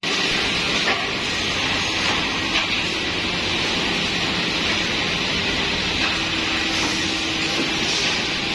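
Woodmaster corner-brace cutting saw running with its dust extraction: a steady rushing machine noise, with a couple of faint knocks.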